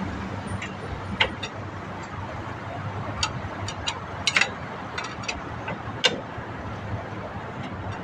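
Scattered sharp metallic clicks and taps of hand tools working on a truck's drum brake, clustered around three to four and a half seconds in with a louder one about six seconds in, over a steady low hum.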